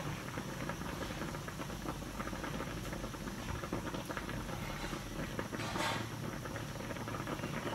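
Tocino boiling in water in a wok: steady bubbling with a fine crackling hiss, briefly louder about six seconds in.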